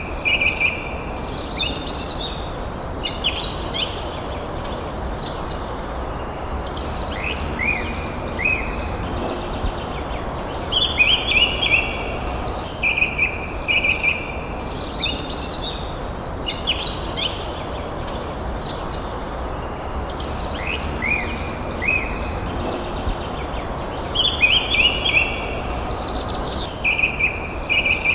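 Forest birds singing: short phrases of chirps and quick upward-sweeping whistles repeat every two to three seconds over a steady low background hiss.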